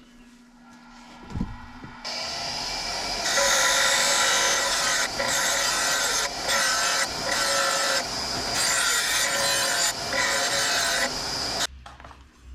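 Motor-driven abrasive tool grinding or sanding the knife, with a steady whine under a coarse rasping noise. It starts about two seconds in and drops out briefly several times as the piece is lifted off. It cuts off suddenly near the end.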